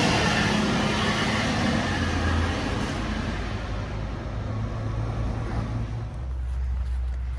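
Road traffic on a town street: a passing motor vehicle fades away over a few seconds, over a steady low engine hum.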